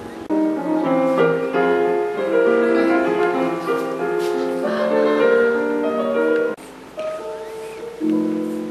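Background piano music, many quick notes at once. It breaks off suddenly about six and a half seconds in, and softer notes follow.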